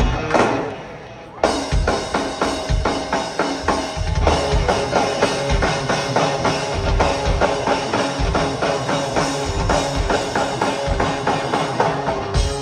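Live rock band playing a drum-led passage, with a drum kit and timbales beating a fast rhythm over the rest of the band. The music drops away briefly about half a second in and crashes back in full about a second and a half in.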